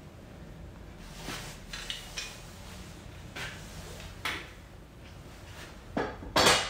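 Metal clinks and scrapes of a steel spanner and pipe wrench on brass plumbing fittings as they are tightened and handled, with a louder metallic clatter near the end.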